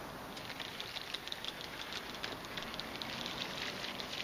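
Fishing reel being cranked to bring a jig back in: a fast, irregular ticking that starts about half a second in.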